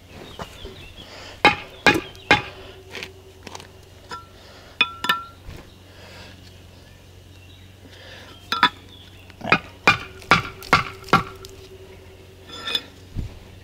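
Steel mason's trowel knocking on a hollow concrete block: about a dozen sharp clinks and knocks in bursts, some with a brief metallic ring, as the block is tapped down into its mortar bed to level it.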